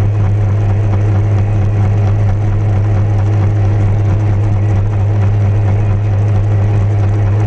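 Motorcycle engine running at a steady cruise in a road tunnel, a constant low hum that does not change in pitch, over road and wind noise.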